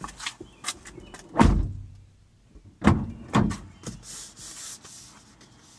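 A car's front passenger door being unlatched and swung open from outside: a series of clicks and knocks from the handle and latch. The loudest is a deep thump about a second and a half in, with two more knocks around three seconds in.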